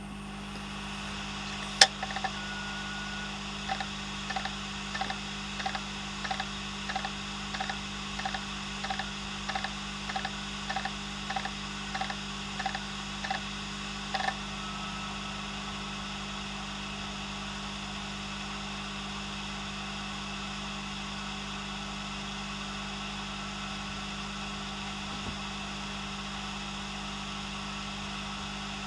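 Opened Western Digital Green 500 GB hard drive spinning with a steady hum. A sharp click comes about two seconds in, then a run of evenly spaced clicks, about three every two seconds, for some ten seconds before they stop. The clicks are the heads hunting, a failed drive that cannot read its data.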